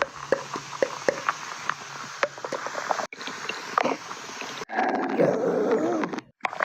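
Stomach growling and gurgling: a run of wet bubbling crackles, then a wavering, drawn-out growl about five seconds in, broken by a few sudden short silences between pieces.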